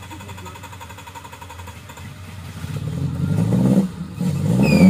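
Suzuki Jimny's engine running, then revved hard from about halfway through, rising and falling in pitch and getting louder as it tries to pull out of a deep mud rut with a wheel spinning.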